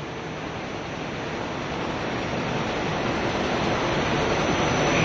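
Water spraying and splashing onto a gravity separation table that washes crushed copper wire granules apart from plastic, with sorting machinery running underneath. It is a steady rushing noise that grows gradually louder.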